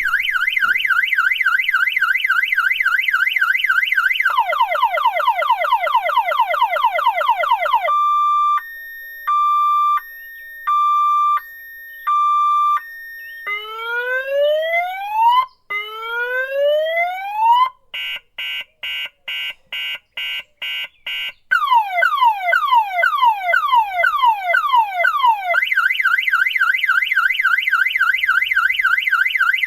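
Car alarm siren cycling through its tones. It opens with a fast warble, then moves through quick falling chirps, a slow on-off beep, two long rising whoops, rapid pulsing beeps and falling chirps again, before returning to the fast warble near the end.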